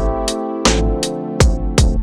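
Background music: an electronic beat with sharp drum hits over sustained keyboard chords.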